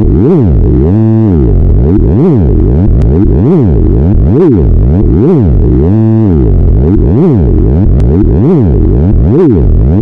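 A cartoon logo jingle put through a pitch-shifting 'helium' effects chain: loud, distorted electronic sound whose pitch sweeps up and down about once a second.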